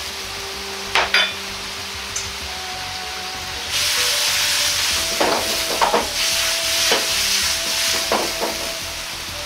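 Diced daikon and tuna sizzling and bubbling in a wok over a gas flame as the seasoned cooking liquid simmers down, with a metal wok ladle clanking and scraping against the pan. The sizzle grows louder about four seconds in, and the ladle knocks several times after that.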